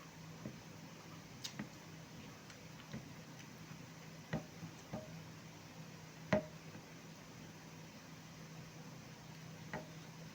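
Eating at a plate: scattered light clicks and knocks of tableware, a few with a short ring, the loudest about six seconds in, over a steady low hum.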